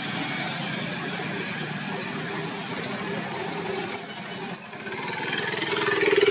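A motor vehicle engine runs steadily and gets louder near the end.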